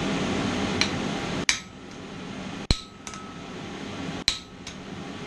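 Hand hammer striking a mild steel bracket on an anvil, about six separate blows at an uneven pace, one leaving a brief metallic ring, as the forging is cleaned up. A steady rushing noise fills the first second and a half and cuts off suddenly at a blow.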